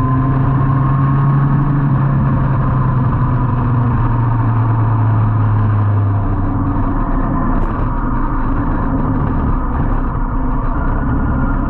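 Onboard sound of a 2003 Yamaha R1's inline-four engine running with wind rush as the bike slows down. About six seconds in, the steady engine note drops away as the throttle closes and the bike rolls at low speed, leaving a lower, rougher rumble.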